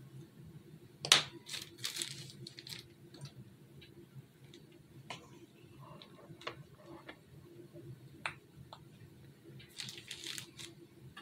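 Clear plastic piping bag crinkling as it is squeezed in the hands, in short bursts, the sharpest about a second in and another cluster near the end, with light clicks and taps between.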